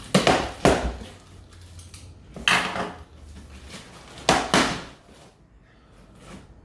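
Handling noise from opening a cardboard box and rummaging through its packed contents: loud rustles and knocks in three clusters, two near the start, one about two and a half seconds in and two more about four seconds in, then quieter.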